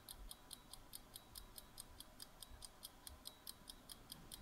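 Faint, evenly spaced clock-tick sound effect of a quiz countdown timer, about four ticks a second.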